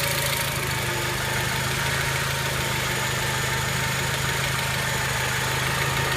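Honda Element's 2.4-litre four-cylinder engine idling steadily as it warms up, with the fuel injectors covered and a light clicking from the top of the engine, which the owner suspects is an out-of-adjustment valve.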